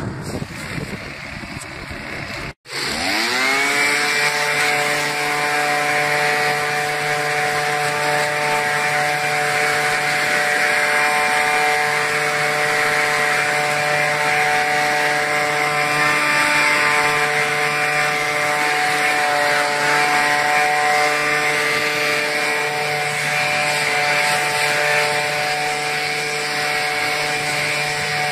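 Hitachi RB24EAP's 23.9cc two-stroke engine blowing leaves: after a rushing noise and a sudden cut about two and a half seconds in, it revs up over about a second and then runs steadily at full throttle with a high, buzzing pitch.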